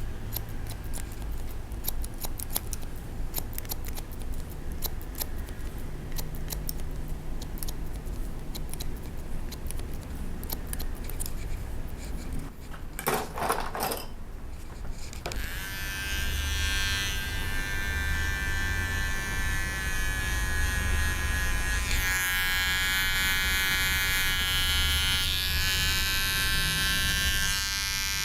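Hair-cutting scissors snipping hair in quick, crisp clicks for the first twelve seconds or so, then a couple of handling knocks. About fifteen seconds in, electric hair clippers switch on and run with a steady buzz while trimming.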